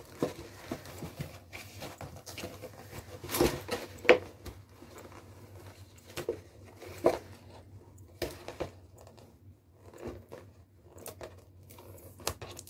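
A paper-wrapped cardboard gift box being unwrapped by hand: irregular rustling and crinkling with small tears, the loudest crackles about three and a half and four seconds in.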